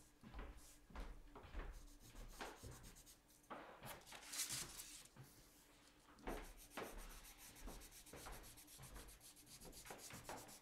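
Coloured pencil rubbing and scratching on paper in short, repeated strokes as a design is shaded in, with a longer, louder rub about four seconds in.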